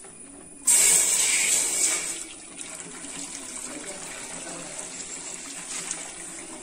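Boiled milk poured into an empty steel vessel: a sudden gush about a second in as the stream hits the bottom, loudest at first, then a steadier splashing as the vessel fills.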